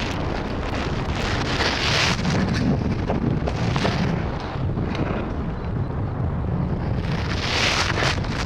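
Wind buffeting the microphone: a steady low rumble with stronger gusts about two seconds in and again near the end.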